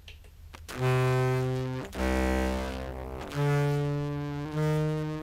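Looped contrabass clarinet phrase played back through a Fuzz Factory fuzz blended with the dry signal: four long, low notes in a row starting about a second in, the second the deepest, the fuzz adding an edge to the round clarinet tone.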